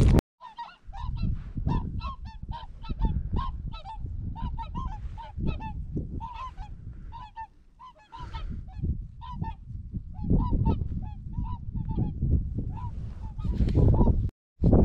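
Waterfowl honking, short calls repeated in quick succession, over a low rumbling noise.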